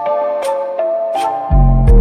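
Background music: a melody of held synth notes over sharp percussion hits, with a deep bass coming in about one and a half seconds in.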